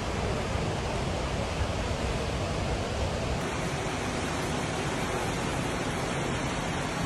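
Steady rushing noise of fast-flowing floodwater, even and unbroken, with a faint high steady tone joining about three and a half seconds in.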